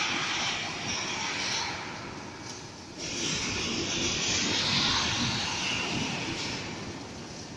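Steady hissing noise of an automatic gantry welding machine at work on a fuel tank. It comes in sections that start and stop abruptly, louder from about three seconds in.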